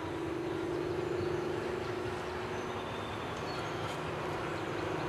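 A Bulleid Pacific steam locomotive running out of sight, heard as a steady distant rumble with a faint held hum.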